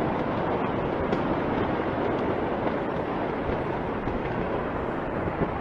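A steady rushing noise with no separate bangs or voices.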